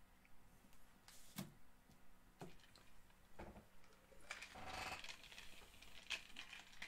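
Near silence with faint handling noises: a few soft taps and a brief rustle about four and a half seconds in.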